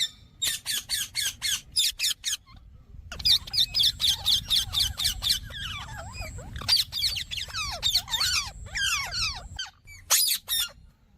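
Indian ringneck (rose-ringed parakeet) calling in rapid runs of shrill squawks, several a second, broken by short pauses; a few quick calls close out the run near the end.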